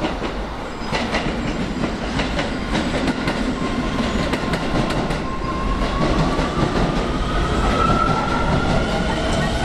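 Keio 7000 series electric train running, with a run of sharp wheel-on-rail clicks early on. About five seconds in, a whine starts to rise steadily in pitch as the train picks up speed.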